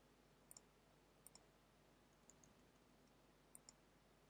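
Faint clicks of a computer mouse button over near-silent room tone, in quick press-and-release pairs about four times, as brush strokes are painted.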